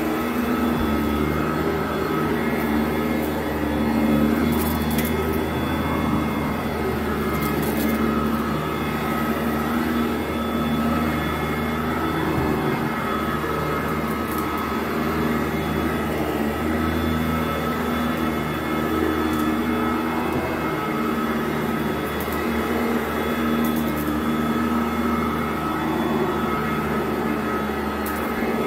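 2010 Sanitaire SC899 commercial upright vacuum cleaner running steadily over carpet, a constant motor hum and whine, with occasional sharp clicks.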